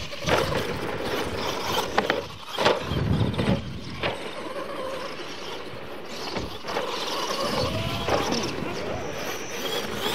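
Radio-controlled monster trucks racing on a dirt track: motors running and tyres on dirt, with several sharp knocks between about two and four seconds in as the trucks hit and land off the ramps.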